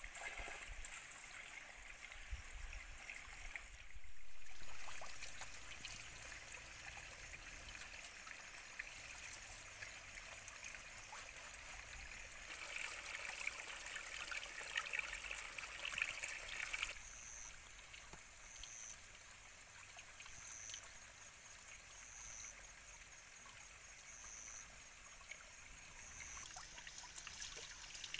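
Water trickling and splashing from a bamboo spout. It is louder and hissier for about four seconds in the middle, where the stream pours onto a person's shoulder.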